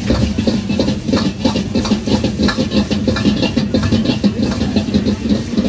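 Metal ladle clattering and scraping against a wok in quick, uneven strokes as food is stir-fried, over a steady low hum in a restaurant kitchen.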